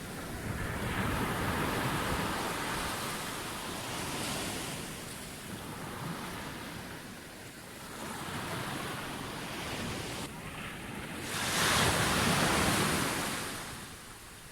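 Ocean surf on a beach: waves break and wash up in slow swells of noise. The biggest wave breaks about twelve seconds in and fades near the end.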